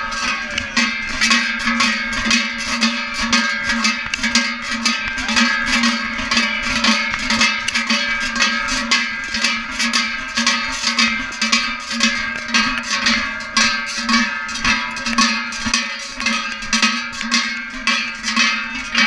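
Two large cowbells (zumbas) slung at a walker's waist, clanging with each stride at about two strokes a second, their ring carrying on between strokes.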